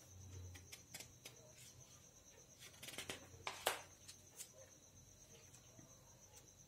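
Quiet room with a steady faint high-pitched trill and a few soft clicks and knocks. The loudest click comes about three and a half seconds in.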